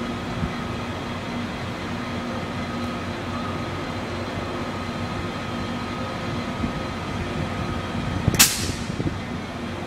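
Amtrak Surfliner passenger train led by a non-powered cab car rolling slowly out of the station, a steady rumble with a constant hum. About eight seconds in, as the cars pass close by, there is one sharp, loud burst of noise.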